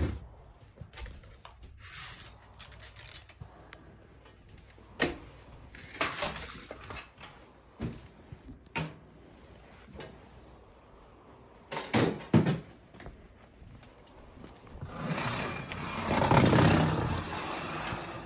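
Scattered knocks and scraping of objects being handled and moved about, with a longer stretch of rustling near the end.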